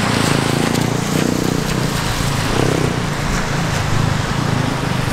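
Steady rushing noise of an InMotion V10F electric unicycle being ridden over a wet road: the tyre hissing on the wet surface, with wind on the microphone.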